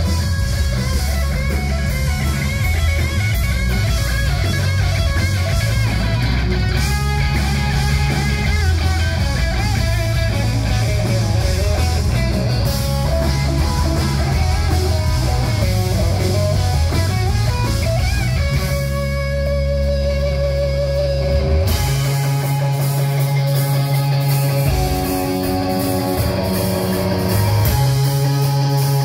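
A hard rock band playing live: electric guitar through Orange amplifiers, with bass guitar and drums, loud and continuous. The cymbals drop out for a few seconds about two-thirds of the way through.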